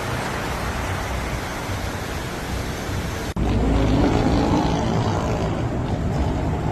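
New York street traffic noise: a steady wash of passing vehicles. About three seconds in it cuts abruptly to a closer, heavier engine rumble.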